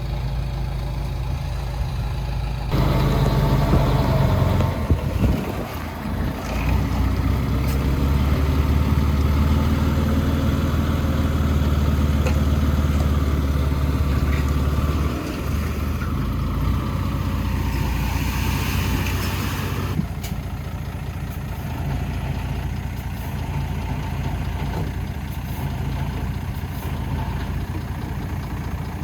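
Diesel engine of heavy earthmoving machinery running, with a deep steady drone whose load rises and falls. The sound shifts abruptly about three seconds in and again about twenty seconds in.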